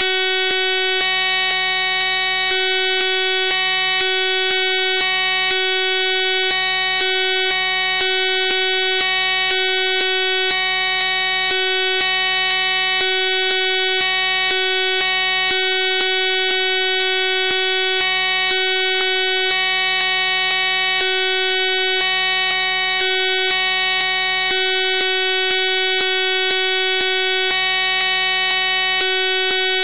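Loud, unbroken electronic buzzing made of many fixed steady tones with no speech in it, and a low hum underneath that cuts in and out about once a second: the noise of a corrupted, glitched digital audio track.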